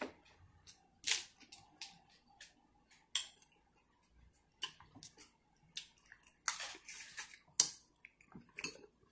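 Close-miked mukbang eating sounds: irregular wet smacks, sucks and clicks from lips and mouth while eating seafood boil and licking sauce from the fingers.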